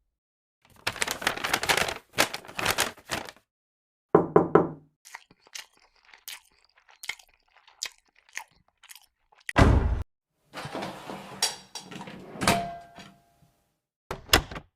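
A string of short, unrelated sound effects, mostly knocks and thuds, with brief silences between them and one deep, loud impact near the middle.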